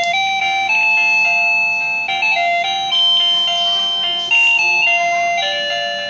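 ZEHN ZN-903Y wireless doorbell receiver playing an electronic chime melody of held notes that step up and down in pitch. The tune starts suddenly, just after its tune-change button is pressed.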